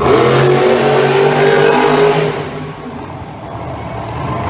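Monster truck engine revving hard for about two seconds, then easing off to a lower, quieter running before picking up again near the end.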